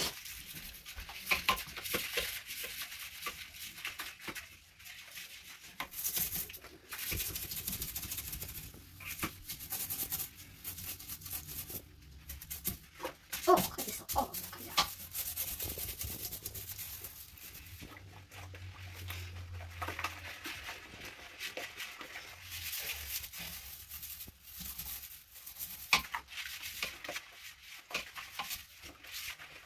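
Brush scrubbing a toilet: a rough, irregular hissing scrub with scattered clicks and knocks.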